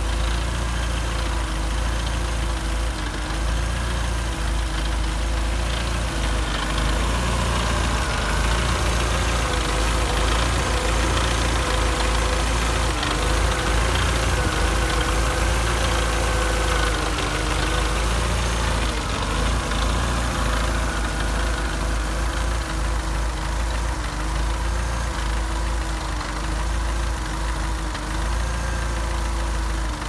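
A Mercedes-Benz CLK 230 Kompressor's supercharged 2.3-litre four-cylinder engine idling steadily, with a faintly wavering whine over the low rumble.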